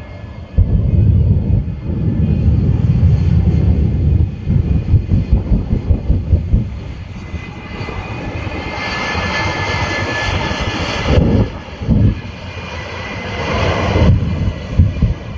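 Aircraft engine noise as a plane flies past, swelling to its loudest about eight to eleven seconds in, over a heavy low rumble of wind buffeting on the microphone.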